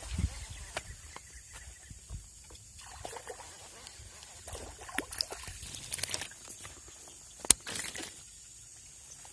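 Faint water sloshing and splashing with scattered small clicks and knocks from handling fishing gear; one sharp, loud click about seven and a half seconds in.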